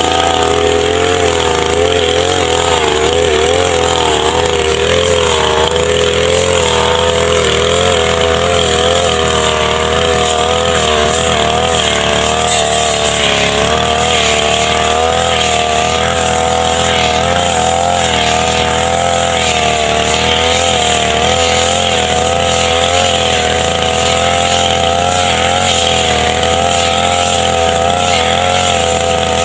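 Two-stroke brush cutter (grass trimmer) engine running steadily at high speed, its pitch wavering slightly up and down.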